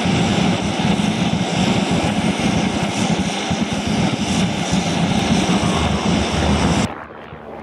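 Aircraft engine running loud and steady on an airport ramp, cutting off abruptly near the end.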